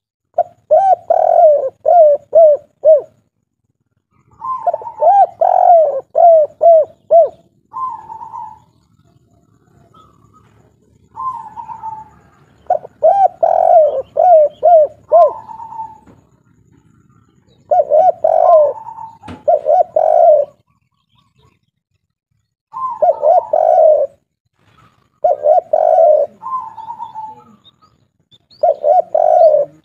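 Spotted dove (derkuku, a 'kuk 3' singer) cooing in repeated phrases of quick low coos, with pauses of a second or two between phrases.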